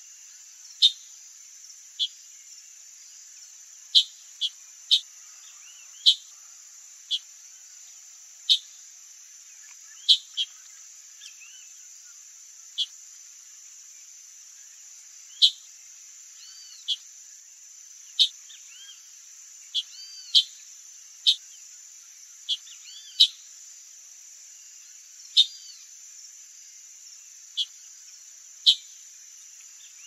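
Chalk-browed mockingbird calling: short, sharp call notes repeated at irregular intervals, roughly one every one to two seconds, some with a small curved note alongside. Underneath is a steady high-pitched drone of insects.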